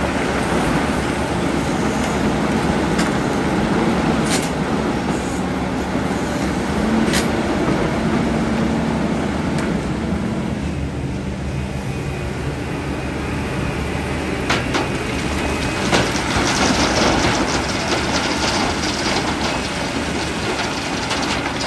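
Large excavator's diesel engine running steadily under load, with occasional sharp metallic clanks and knocks and a stretch of rattling, crackling noise late on.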